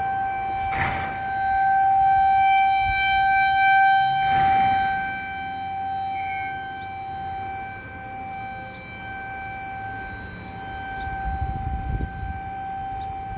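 Model 2001 outdoor tornado warning siren sounding a steady, unchanging tone test. Its loudness swells for a few seconds and then fades back.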